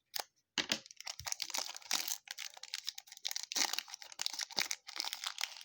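Plastic trading card pack wrapper being torn open and crinkled in the hands, a dense crackling rustle with many sharp ticks.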